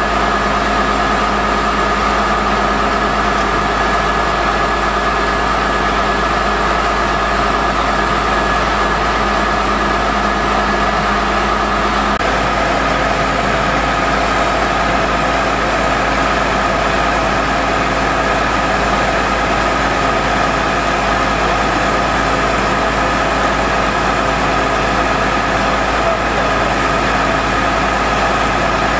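Truck-mounted core drilling rig's engine running steadily, with a steady high whine over it. A low hum in the sound changes about twelve seconds in.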